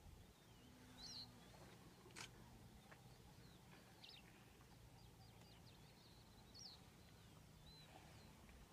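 Near silence with faint, scattered bird chirps: short quick whistles that bend up and down, over a low steady hum. A single sharp click comes a little over two seconds in.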